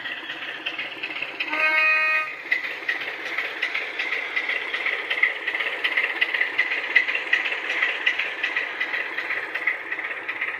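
Model Class 27 diesel locomotive's DCC sound decoder, playing a sampled Sulzer diesel engine running steadily. A short horn blast comes about a second and a half in. The sound is played through the model's small speaker.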